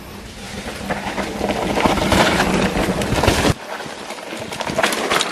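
Polygon Siskiu mountain bike riding fast down a dirt trail: tyres crunching over the ground and the bike rattling, with many sharp clicks and knocks. A loud low rumble cuts away suddenly about three and a half seconds in, leaving quieter rattling.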